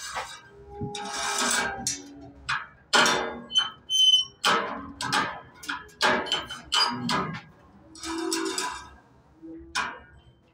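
Irregular metallic clanks and knocks, some ringing briefly, from a mechanical livestock beam scale and its weighing platform as the poise weight is moved to weigh an animal.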